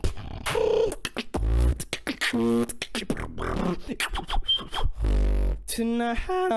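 Beatboxing into a microphone: quick, sharp mouth-percussion hits, two long deep sub-bass notes (about a second and a half in and again about five seconds in), and pitched sung vocal tones woven between the beats.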